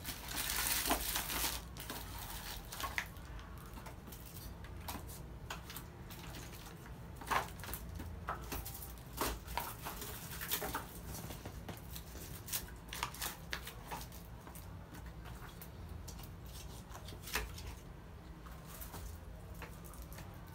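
Grocery packages being handled and stacked: plastic sachets and bags crinkling, and milk cans and cartons set down with light knocks and clicks on a tiled floor, with a longer burst of crinkling about a second in.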